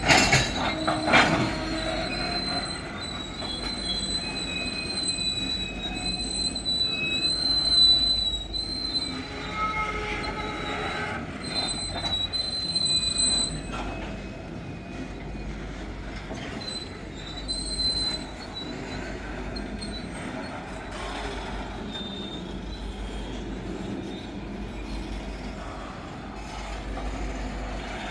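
Freight wagons on metre-gauge track rolling past, their wheels squealing in high, wavering tones through the first half, with a few loud clanks about a second in. The squeal then dies away, leaving a steady rolling rumble.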